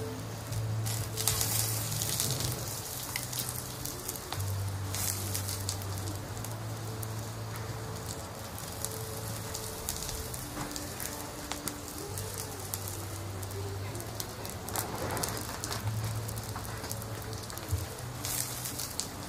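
Wood fire crackling and popping in a small folding fire pit, a dense run of small snaps, over soft background music with low held notes that change every few seconds.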